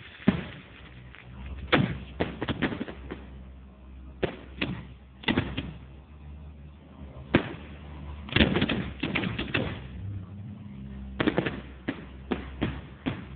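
Fireworks going off: irregular clusters of sharp bangs, several in quick succession at a time, with short gaps between the clusters.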